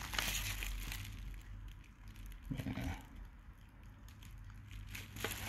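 Quiet handling noise from a metal steelbook case with a clear plastic disc tray being shifted over bubble wrap: soft crinkling and rustling, a soft bump about halfway through, and a few light ticks near the end.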